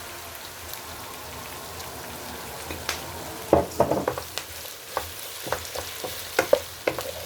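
Carrots and onions sizzling in hot oil in a pan, a steady hiss, with a utensil knocking and scraping against the pan from about three seconds in as they are stirred.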